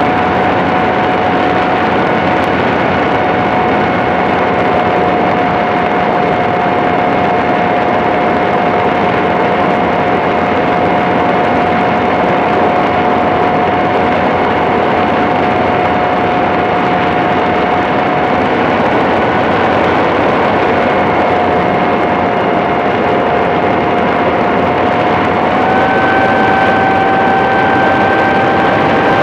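Motor and propeller of a radio-controlled model airplane running at steady throttle, heard up close on board: a steady whine over a rushing hiss. Near the end the pitch sags slightly, then steps up a little.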